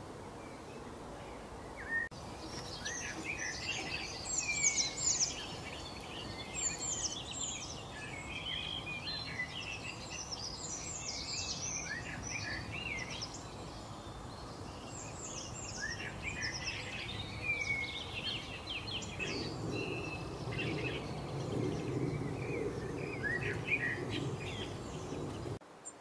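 Songbirds chirping and whistling: a dense run of short, quick high calls that overlap, starting about two seconds in and cutting off suddenly just before the end.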